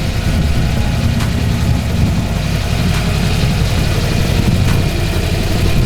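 Ford Bronco engine running steadily at low revs, as when idling or crawling slowly over rock.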